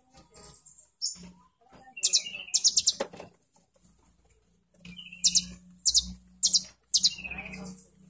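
A caged konin (kolibri ninja) sunbird singing: bursts of rapid, high chirping trills, about two seconds in and again from about five to seven and a half seconds in, over a low hum in the second half.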